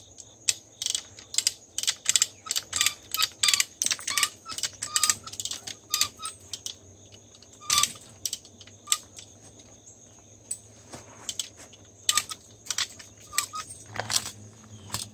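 Hand-ratcheting come-along cranked to stretch fence wire: quick metallic clicks of the ratchet pawl, two or three a second, with chain clinking. The clicking thins out about halfway, stops for a few seconds, and picks up again near the end.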